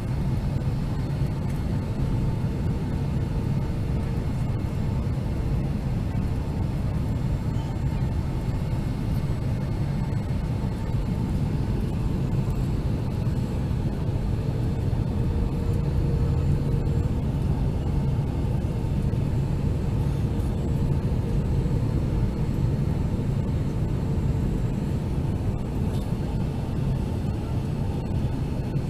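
Steady in-cabin roar of a Boeing 757-200 on approach, heard from a window seat beside the wing: the drone of its Rolls-Royce RB211 turbofans blended with airflow noise over the fuselage, with a faint steady hum on top.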